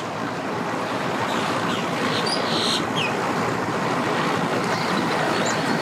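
Bass boat's outboard motor running with water wash as the boat comes in, a steady rushing noise that swells over the first second and then holds.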